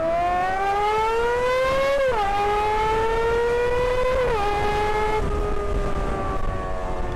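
High-revving Japanese motorcycle engine, run with no exhaust, wailing as the bike accelerates. The pitch climbs steadily and drops sharply at two upshifts, about two and four seconds in, then holds near steady and eases off slightly.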